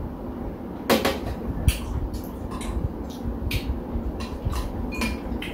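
Metal spoons clinking and scraping against ceramic bowls in short, irregular clicks while eating, with one louder knock about a second in as a ceramic mug is set down on the metal tray.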